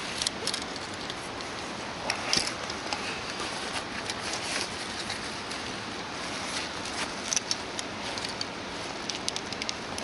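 Tent fabric rustling and crinkling, with scattered small clicks, as the end of a tent-frame pole is worked into the shelter's corner fitting by hand.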